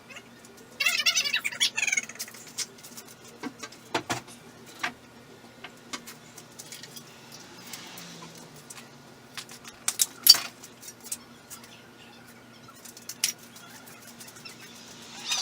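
Scattered clicks and knocks, the loudest about ten seconds in, with a short burst of high chirping about a second in, over a steady low hum.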